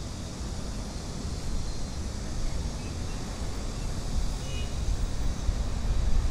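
Road traffic running steadily on a busy city street: a constant low rumble with a hiss over it.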